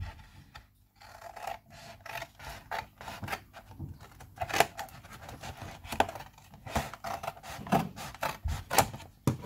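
Scissors cutting through a thin cardboard cereal box: a series of short crunching snips, roughly one or two a second.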